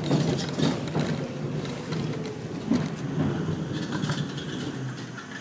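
New York City subway train running at speed: a steady rumble of wheels on rail with scattered clacks, slowly fading.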